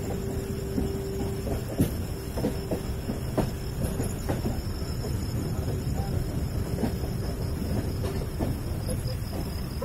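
Passenger train running, heard from inside the coach: a steady rumble of wheels on rail with irregular clicks and clanks over the track. A thin steady whine fades out about a second and a half in.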